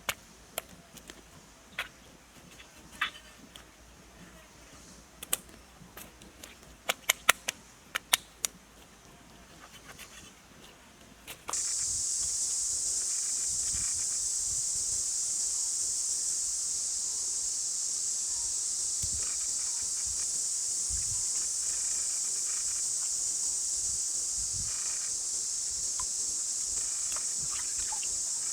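A few sharp clicks and snaps over quiet outdoor ambience, then about eleven seconds in a steady, high-pitched insect chorus cuts in abruptly and runs on unchanged.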